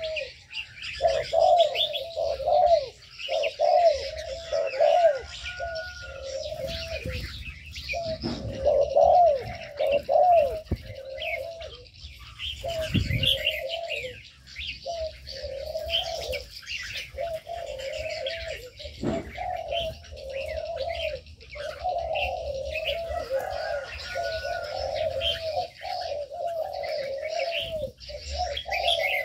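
Doves cooing over and over in a mixed aviary, with many small birds chirping and twittering at the same time.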